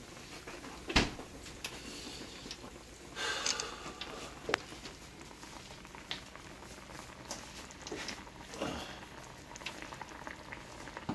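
Creamy lobster sauce simmering in a skillet, reducing with soft bubbling and scattered pops. A sharp click about a second in and a brief louder burst of bubbling a little after three seconds.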